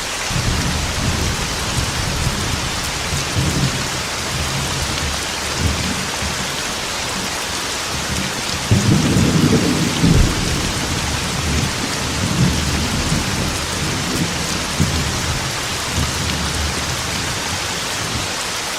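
Heavy rain drumming steadily on a metal roof, with thunder rumbling underneath. The rumble starts right away and swells loudest about nine to ten seconds in.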